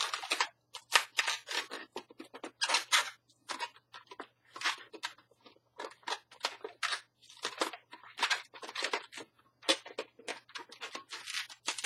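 Latex twisting balloons squeaking and rubbing against each other in quick, irregular bursts as they are twisted into ear twists and small bubbles. The balloons have almost no powder on them, which makes them squeak more.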